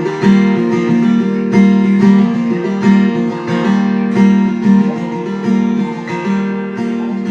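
Acoustic guitar strummed in a steady rhythm between sung lines of a song, sustained chords ringing with a strong low note.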